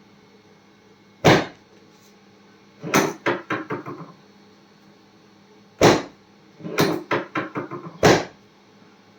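Sharp knocks or slaps: three single hard hits and two runs of about eight quick taps that fade away.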